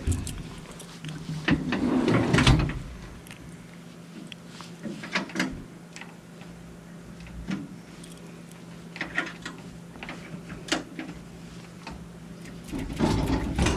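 Steel tool chest's key lock being worked: a few separate sharp clicks as the key turns the lock cylinder, with louder metal bumps and rubbing of the chest near the start and again near the end.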